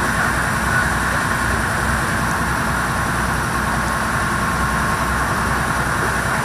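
Passenger boat's engine running steadily under way, a continuous even drone.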